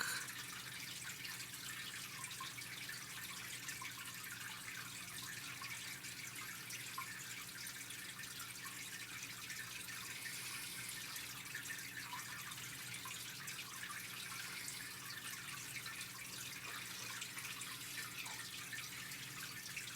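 Room tone: a steady hiss with a faint low electrical hum.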